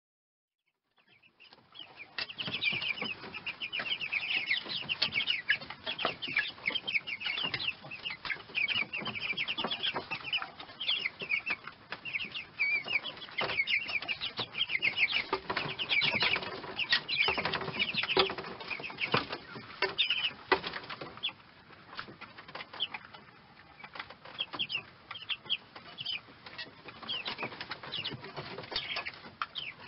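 Domestic chicks peeping: many short, high calls overlapping, with scattered soft knocks. It fades in over the first two seconds, and the peeping grows sparser after about twenty seconds.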